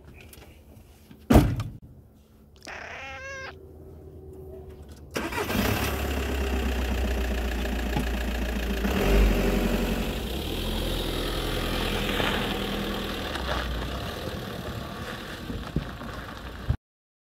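A vehicle door slams shut, then about five seconds in a Volkswagen van's engine starts and runs steadily as the van pulls away. The engine sound cuts off suddenly near the end.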